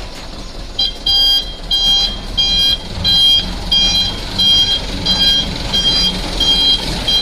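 A truck's reversing alarm beeping steadily, about one and a half beeps a second, starting about a second in, over the low running of the truck's engine.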